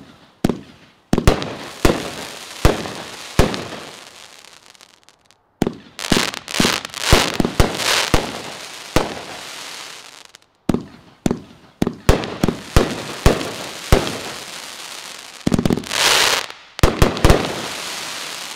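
Consumer firework cake firing: a rapid string of sharp shots and aerial bursts, each trailing off briefly, with a dense run of breaks about sixteen seconds in. The sound cuts off abruptly three times.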